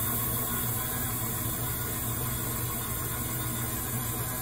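Steady low machine hum with an even hiss, easing slightly over the first second or two and then holding steady.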